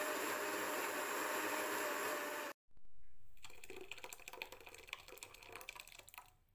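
Countertop blender running steadily as it blends prawn shells with water; it cuts off about two and a half seconds in. Then the foamy blended prawn-shell liquid is poured into a bowl, splashing with a crackle of popping bubbles that trails off near the end.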